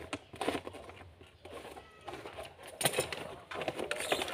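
Wrapping paper rustling and crinkling as a gift box is wrapped by hand, in short scattered bursts, with a sharper crinkle about three seconds in.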